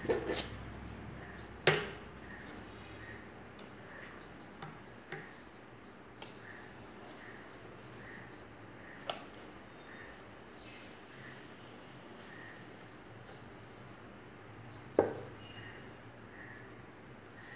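Quiet room with a steady run of short high chirps, about three a second, and two sharp taps, one about two seconds in and one near the end.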